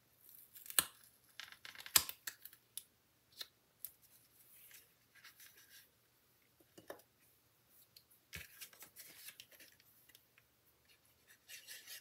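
Cardstock being handled and pressed on a craft desk: soft paper rustles and slides, with sharp clicks and taps, two in the first two seconds and another about eight seconds in.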